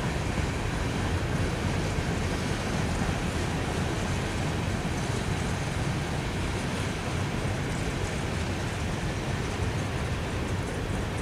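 Freight train's tank cars rolling past: a steady rumble of steel wheels on the rails.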